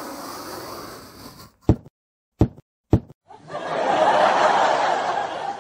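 Three sharp knocks about half a second apart, then a louder steady rushing noise lasting about two seconds.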